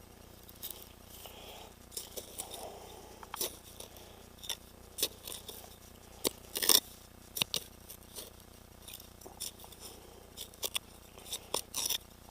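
Digging in stony soil with a hand digging tool: irregular sharp clicks, scrapes and small clinks as the blade strikes stones and earth, with the loudest cluster of clicks about two-thirds of the way through.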